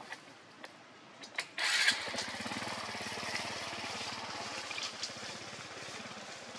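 A small engine starting about two seconds in with a short hiss, then running steadily with a fast, even low pulse.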